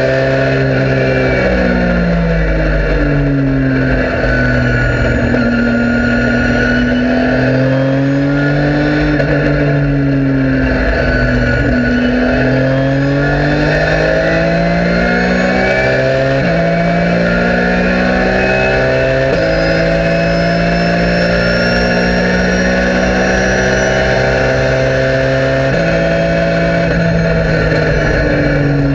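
Porsche 997 GT3 Cup's flat-six engine at high revs, heard from inside the cabin, falling and rising in pitch through corners. In the second half it accelerates hard, with sudden pitch drops at upshifts about 16, 19 and 26 seconds in.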